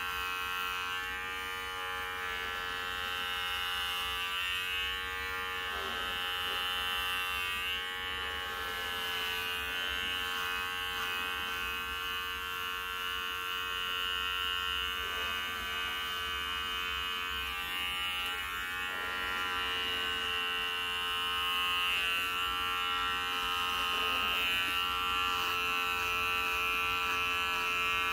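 Electric hair clippers buzzing steadily as they shave a head down close to the scalp, the tone wavering a little as the blade is moved over the head.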